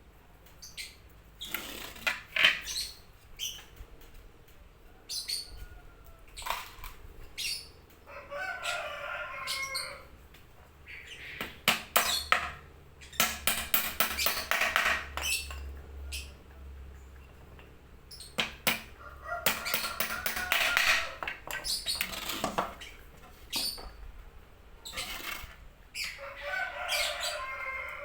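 Repeated sharp clicks and knocks of bird-cage parts being handled and fitted together, with a fast run of clicks about halfway through. Chickens cluck and crow in the background three times.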